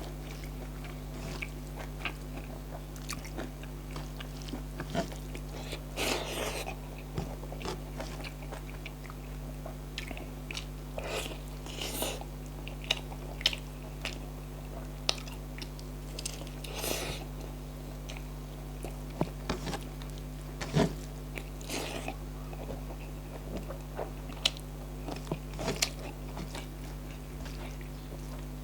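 A person eating close to the microphone: irregular bites and chewing with wet mouth sounds, over a faint steady low hum.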